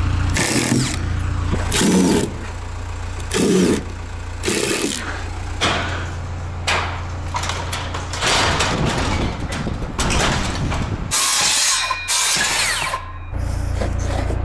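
Milwaukee cordless impact driver hammering in short repeated runs, driving screws into OSB sheathing, over a steady engine hum from the idling forklift.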